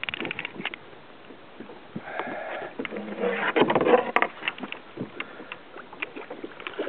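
A person sniffing and breathing during a fight with a fish from a kayak, with scattered light clicks and knocks throughout and a louder breathy stretch about three seconds in.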